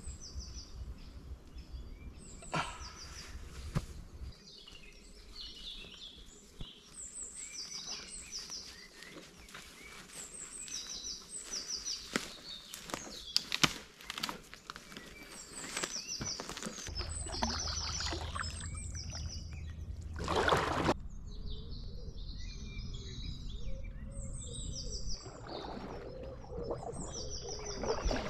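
Songbirds singing a short high phrase over and over, with crackling footsteps and twig snaps on the forest floor through the middle stretch, and a brief rush of noise about twenty seconds in.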